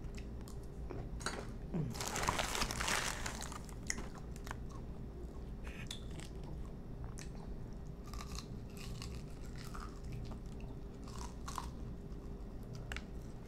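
Close-up chewing and crunching of food in the mouth, with many small wet clicks and a longer, louder crunching stretch about two seconds in.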